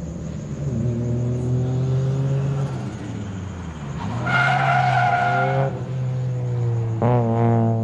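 A drift car's engine revving hard as the car slides through a corner. About four seconds in, the tyres squeal for a second and a half, and near the end the engine note jumps sharply as the throttle goes on again.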